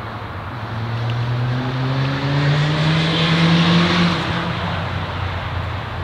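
Engine of a passing motor vehicle, its pitch rising steadily and loudest about three to four seconds in, then fading.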